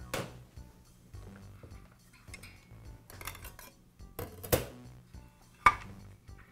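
A circular saw blade, its bolt and washer being handled and set down on a sheet-metal workbench: a few sharp metallic clinks and clatters, one right at the start and two louder ones near the end, with quieter handling noise between.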